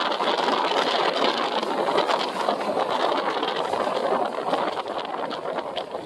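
Jet airliner's engine noise as it climbs away after takeoff: a steady rushing roar with a crackling edge, slowly fading toward the end.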